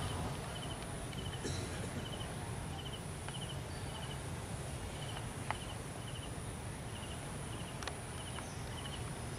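A cricket chirping steadily, short pulsed chirps at one high pitch about three every two seconds, over a low outdoor rumble, with a few light clicks.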